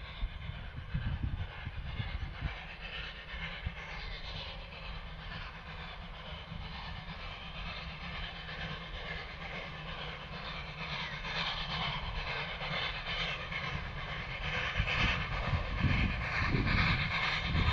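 South Australian Railways Rx-class 4-6-0 steam locomotive Rx224 working hard up a grade, its exhaust beats growing steadily louder as it approaches. Wind buffets the microphone, hardest at the start and near the end.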